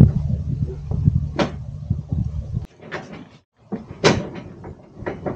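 Clunks and knocks of a hand pallet jack hauling a large crate off a truck's liftgate, over a steady low hum that stops suddenly about halfway through. Several sharp knocks follow.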